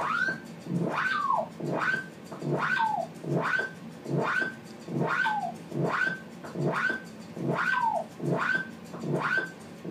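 Homemade stripboard modular synthesizer playing a repeating note about every 0.7 seconds. Each note sweeps up in pitch, and every few notes slides back down at the end.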